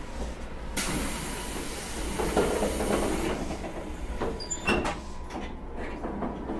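JR Kyushu 811 series electric train at the start of its run: a loud hiss lasting about two and a half seconds, then a few sharp knocks and a thump.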